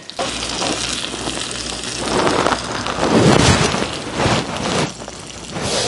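Salmon fillets searing in avocado oil in a hot cast iron skillet, a steady crackling sizzle that gets louder and more uneven about two seconds in.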